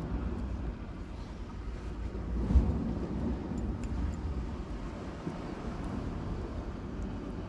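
Wind buffeting the microphone as a low, uneven rumble, with one short knock about two and a half seconds in.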